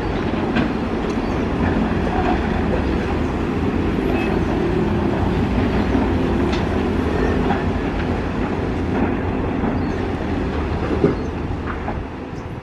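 Heavy construction machinery at work: the steady diesel rumble of an excavator and dump trucks, with a few faint knocks, easing slightly near the end.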